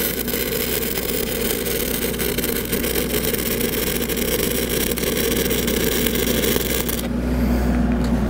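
6010 stick electrode burning a downhill root pass on steel pipe: a steady crackling arc that stops about seven seconds in. An engine runs steadily underneath and is left alone once the arc stops.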